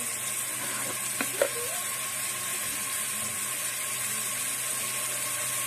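Chopped garlic, onion and green chillies sizzling steadily in hot soybean oil in a metal pan. Two quick knocks about a second and a half in.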